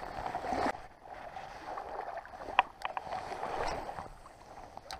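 Water splashing and sloshing close by, with a single sharp click about two and a half seconds in.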